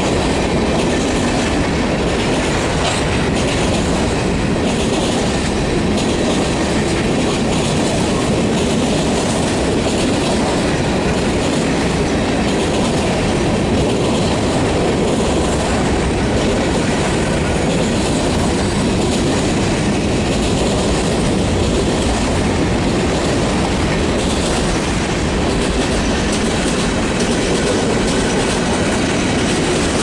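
Freight train's covered hopper cars rolling steadily past: a continuous rumble and rattle of the cars with the wheels clicking over the rail joints.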